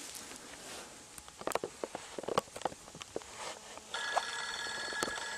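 Footsteps crunching on dry ground and brush. About four seconds in, a steady high electronic tone with several pitches starts and holds.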